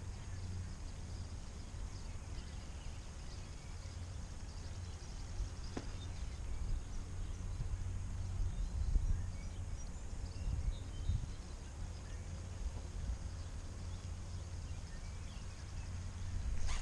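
Steady low rumble of wind on the microphone outdoors, with faint bird chirps and a single light click about six seconds in.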